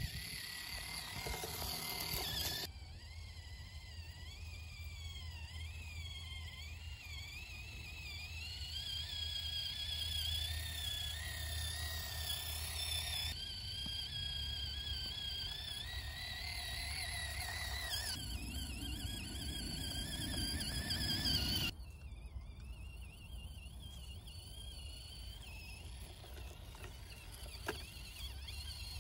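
Tiny brushed electric motor and geartrain of an Axial SCX24 Jeep Gladiator RC crawler whining. The pitch wavers up and down with the throttle as it crawls. The sound changes abruptly several times.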